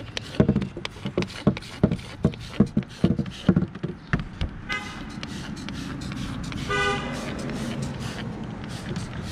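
Hand trigger spray bottle squirting aluminum brightener onto a boat hull, a quick run of sharp squirts about two a second for the first four seconds. Two brief horn-like toots follow, a faint one about five seconds in and a louder one near seven seconds.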